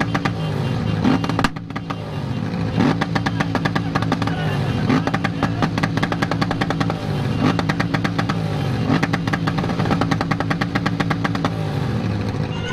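Yamaha XJ6's 600 cc inline-four running through a straight pipe with no muffler, loud, its pitch repeatedly rising and dropping under throttle and gear changes, with a rapid crackle over the exhaust note.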